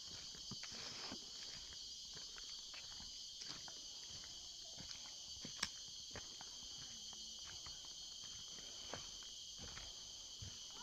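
A steady, high-pitched chorus of rainforest insects, with scattered light footsteps and clicks on the forest floor. One sharp click about five and a half seconds in is the loudest sound.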